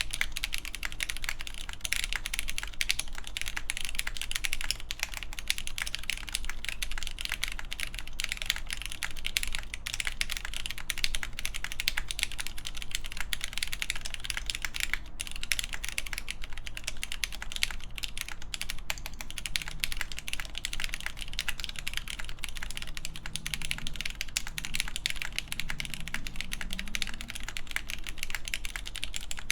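Continuous fast typing on a mechanical keyboard, a rapid stream of key clacks: an AKB Reverie with a full polycarbonate plate, Cherry MX Black clear-top linear switches lubed with 205g0 and filmed, and GMK keycaps.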